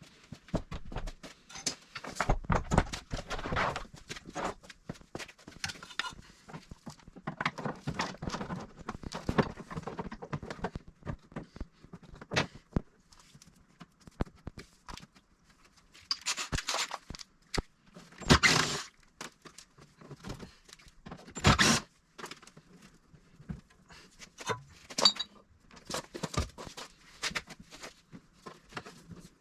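A plastic car bumper cover being pried and wiggled free of its plastic retaining clips: irregular clicks, knocks and rubbing of plastic, with a few louder bursts in the middle.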